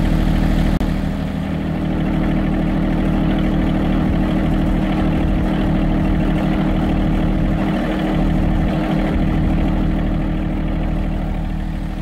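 John Deere compact tractor engine idling steadily, a constant low hum with no change in speed.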